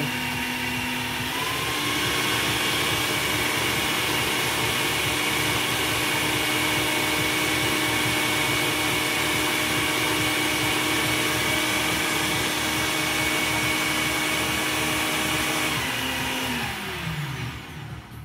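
Countertop jug blender motor running steadily at high speed, blending garlic into a liquid dressing. It steps up a notch in speed about a second and a half in. Near the end it is switched off and its pitch glides down as the motor spins to a stop.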